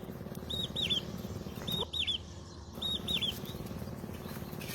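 A bird calling: three short phrases, each of three quick high arched notes, repeated about every second and a quarter.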